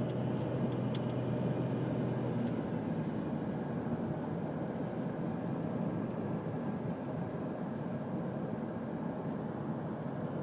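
Steady road noise inside a moving truck's cab: engine and tyre rumble, with a low hum that drops away about two and a half seconds in, and a few light clicks near the start.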